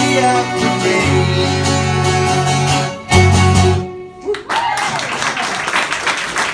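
Guitar-led song ends on a final chord a little after three seconds in. The audience then starts applauding and cheering.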